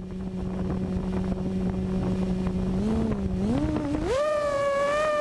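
FPV racing quadcopter motors whining at a low steady pitch, then climbing in steps to a much higher steady whine about three to four seconds in as the throttle is raised.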